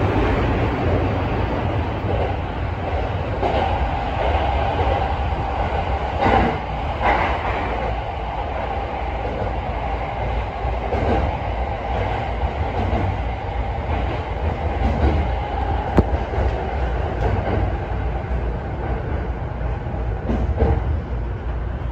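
JR East Sobu Line train running through an underground tunnel and into a station, heard from the driver's cab: a steady low rumble of wheels on rail, with a few sharp clacks along the way.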